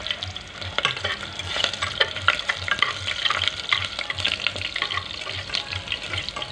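Sliced onion frying in hot oil in an aluminium pressure cooker: a steady sizzle with dense, quick crackling.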